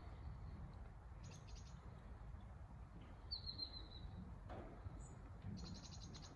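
Small birds chirping faintly: a short run of chirps about a second in, a single falling chirp around three seconds, and a rapid trill near the end, over a steady low rumble.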